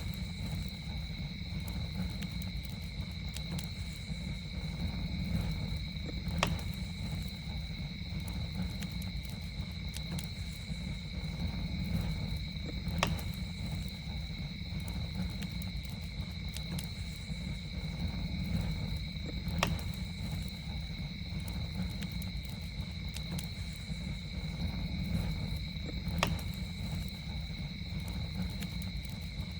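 Campfire burning with a low steady rumble and small crackles, broken by a sharp pop every six or seven seconds. Over it runs a steady, high, two-pitched drone of insects such as crickets.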